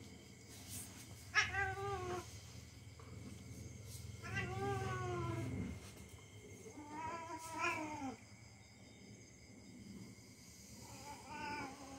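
Domestic cat meowing in drawn-out yowls, four times, each call falling in pitch, while a young dog play-bites at its neck.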